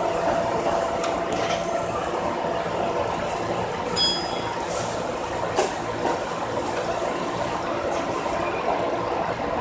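JR 205-series electric train running, heard from inside the cab: a steady rumble of wheels and running gear. Occasional sharp clinks and knocks, and a brief high ring about four seconds in.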